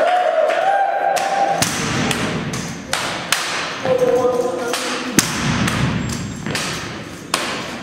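Drill rifles being spun, caught and slapped during a two-cadet armed exhibition drill: a string of sharp wooden knocks and slaps, about a dozen, starting a second and a half in. Spectators whoop and call out twice over them.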